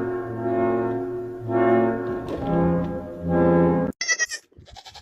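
Music playing a slow melody of held notes for about four seconds, which cuts off abruptly. Right after, a goat gives a brief high-pitched bleat.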